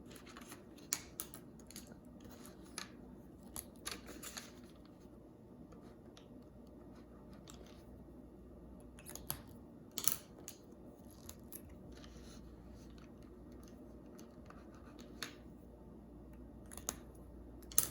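Gel pen swatching on paper: short scratchy strokes of the pen tip, with scattered light clicks and taps from handling the pens.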